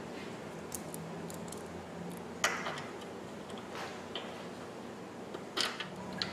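Light metallic clicks and taps of a bolt being started by hand through a rock slider into its mounting hole under a Jeep's rocker panel: a handful of scattered ticks, the sharpest about two and a half seconds in and again near the end.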